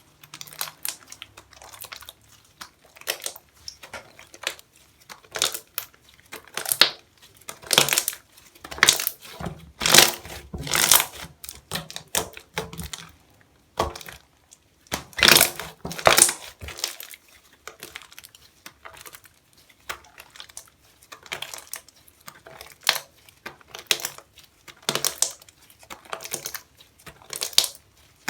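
A Cozy Slime slime being squished and worked by hand, giving irregular crackly bursts, several a second at times, with some louder clusters.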